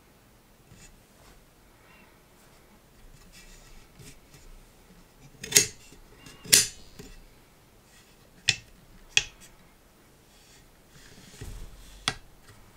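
Folding metal laptop stand being handled, its arms and hinges giving a series of sharp clicks: two loud ones about a second apart midway, two more soon after, and a last one near the end, with faint rubbing between.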